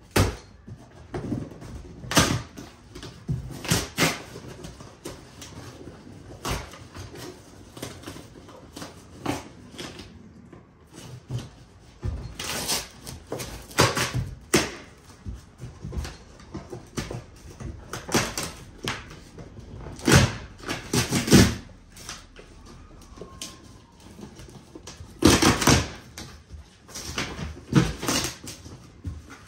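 Bike shipping box being cut and pulled open by hand: irregular knocks, thumps and scrapes of packaging being handled, with louder clusters of knocks about 2 and 4 seconds in, again around 12 to 15 and 20 to 21 seconds, and near 25 seconds.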